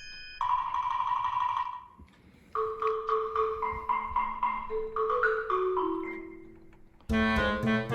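Instrumental background music: a held note, then a string of short pitched notes, and a louder burst of several notes near the end.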